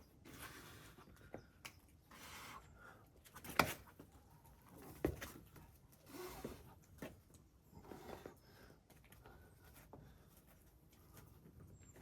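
A boulderer's hard breathing in irregular puffs, with scuffs and sharp taps of climbing shoes and hands on the rock; the loudest tap comes about three and a half seconds in.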